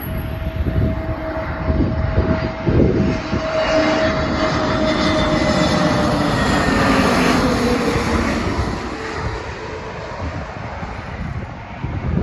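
British Airways Airbus A320neo jet on final approach passing low overhead. The engine rush swells to its loudest midway and then fades, and its whine falls in pitch as the aircraft goes by.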